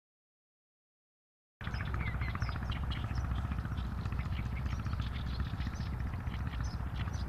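Silence, then about a second and a half in a countryside ambience cuts in abruptly: many small birds chirping over a steady low rumble.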